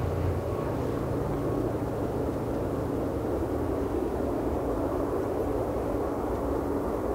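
Airbus A380's four Rolls-Royce Trent 900 turbofans on final approach, heard as a steady low rumble of jet engine noise.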